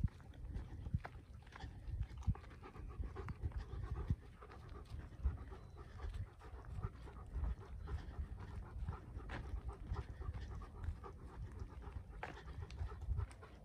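A dog panting steadily while walking, with footsteps on a dirt lane and an uneven low rumble on the microphone.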